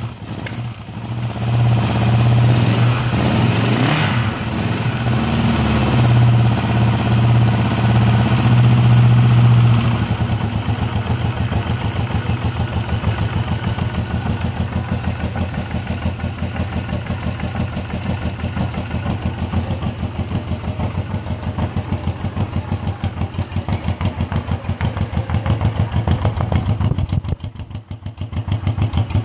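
1974 Honda CL450 Scrambler's parallel-twin engine running on its first start in 30 years: held at a higher fast idle for about ten seconds, with a brief rev about four seconds in, then settling to a slower, even idle with a steady beat. The sound drops briefly near the end, then picks back up.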